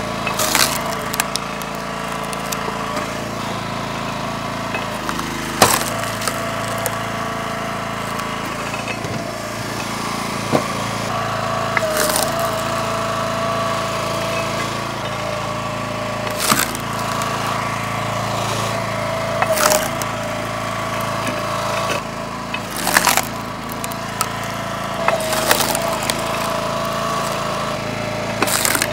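Split-Fire 3490 log splitter's gas engine running steadily, with about eight sharp cracks and knocks of wood splitting and split pieces landing, every three to six seconds.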